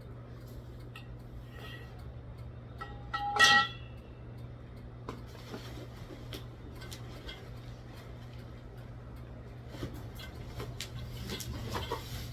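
A metal part clinking once with a short ringing note about three and a half seconds in, over a steady low hum, with a few lighter clicks and knocks near the end.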